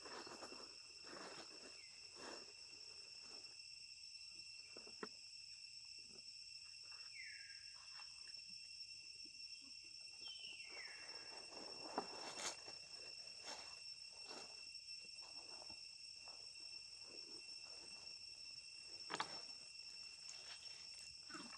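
Faint, steady insect chorus of crickets or cicadas: constant high buzzing tones, with scattered light clicks and knocks and two short falling chirps partway through.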